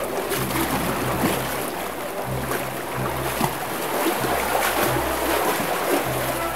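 Water rushing along a narrow concrete channel, a steady loud noise, with background music's low bass notes coming and going underneath.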